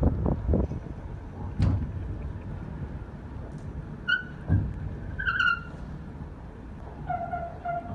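Ship's hull sliding down a steel slipway during a launch: a low rumble with heavy thuds and a sharp knock, and short high-pitched squeals in the second half.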